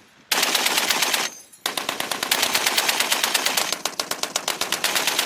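M2A1 .50-calibre heavy machine gun firing: a short burst of about a second, a brief pause, then a longer sustained burst of rapid, evenly spaced shots that is still going at the end.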